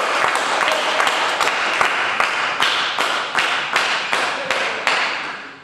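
Spectators clapping: dense, irregular hand claps that die away near the end.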